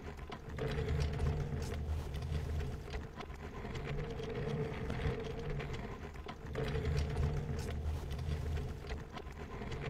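A small mechanism running with a steady whirring hum that swells and fades in slow cycles of about three seconds as it goes round.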